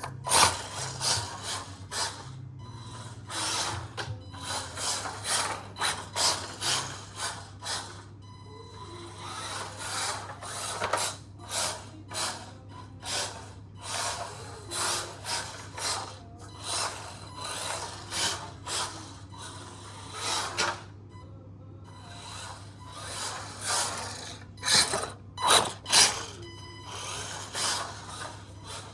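Irregular short rubbing and scraping sounds, about one or two a second with brief pauses, over a steady low hum.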